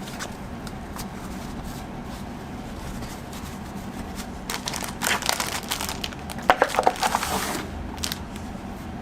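Packaging being handled: a few faint ticks, then from about halfway through a few seconds of crinkling and rustling with sharp clicks.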